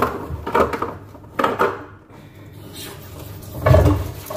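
Dishes and glasses being handled at a kitchen sink during washing up: a few sharp knocks and clatters, the loudest a heavier thump nearly four seconds in, with the tap starting to run near the end.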